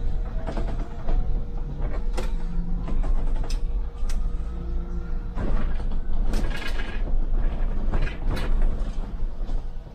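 MAN Lion's City hybrid city bus heard from inside: a steady low rumble with many sharp knocks and rattles scattered throughout, under a faint steady hum.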